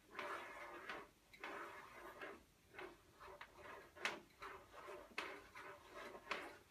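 Dupla Magnetventil Pro CO2 solenoid valve being screwed by hand onto its Teflon-taped thread in the Armatur Pro CO2 regulator: faint handling and rubbing with a series of small clicks and ticks, the sharpest about four, five and six seconds in.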